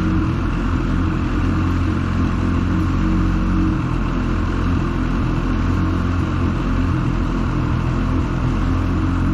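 Lynx snowmobile's two-stroke engine idling steadily while it warms up.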